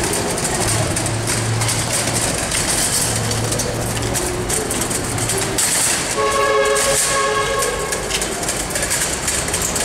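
Metal casket trolley rolling over a concrete floor, its casters giving a steady rumble and rattle. A horn sounds for about two seconds, about six seconds in.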